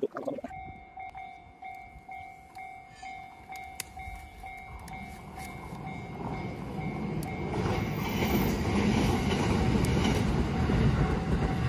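Railway level-crossing warning bell ringing in an even repeating beat of two tones, just under two strokes a second. A train passes through meanwhile: its rumble and clatter build from about halfway and are loudest near the end.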